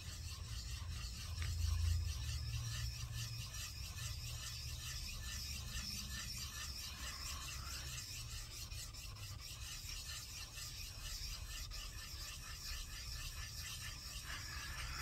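Steel vise jaw being lapped flat on a sharpening stone, rubbed in steady, repeated back-and-forth strokes that give a gritty scraping rasp.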